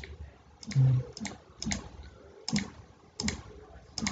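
Typing clicks, one per key as letters are entered on a phone's on-screen keyboard: about seven short, sharp clicks at an uneven pace, roughly half a second to a second apart.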